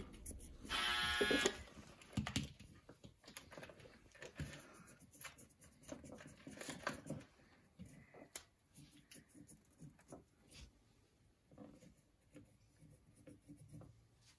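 Markers scratching and tapping on small plastic toy figures: scattered faint clicks and taps. About a second in there is a short, louder, high squeak.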